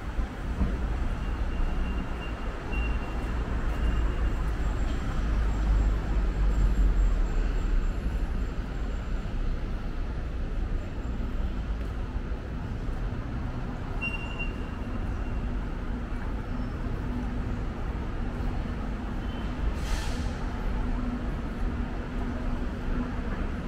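Street traffic ambience: vehicles running, with a low rumble that swells about five to eight seconds in and a short hiss about twenty seconds in.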